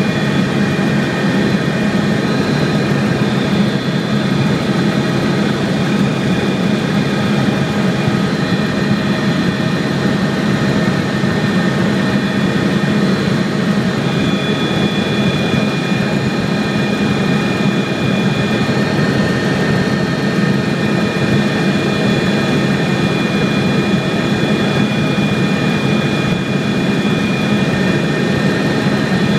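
Aircraft engine running steadily and loud, a constant hum with several high whining tones held over it.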